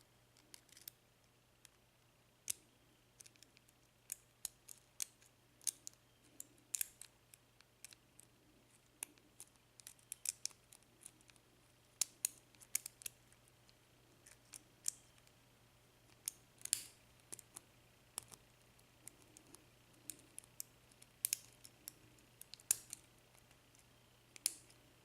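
A shallow lock pick and tension tool working the five standard pin stacks of a brass Euro cylinder lock: faint, irregular metallic clicks and ticks as the pins are lifted and set.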